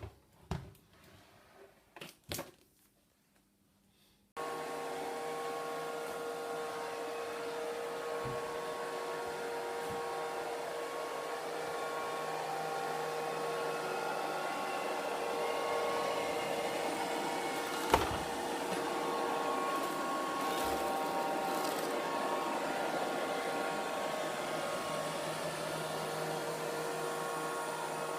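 A few light clicks and knocks, then the Kitfort KT-503 robot vacuum cleaner switches on about four seconds in and runs with a steady whirring hum and a faint whine. There is one sharp knock about two thirds of the way through.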